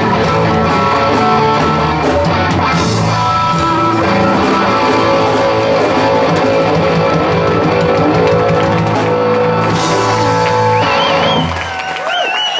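Live blues-rock band playing loudly: electric guitars, bass and drum kit. The music stops about a second before the end and the audience starts cheering.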